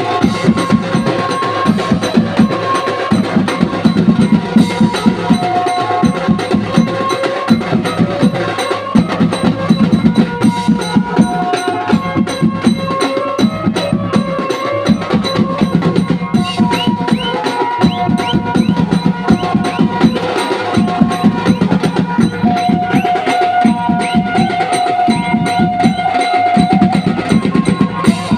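Live band music: fast, continuous drumming on several large metal-shelled drums, with a melody line played over the beat.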